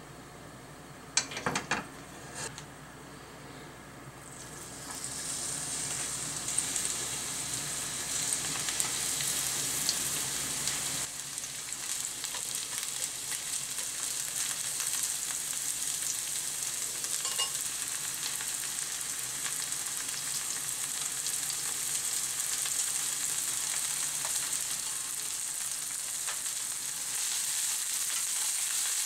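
Sliced Japanese long onion sizzling in hot oil in a frying pan, stirred with chopsticks. A few sharp knocks come about a second in, then the sizzling starts about four seconds in and runs steadily.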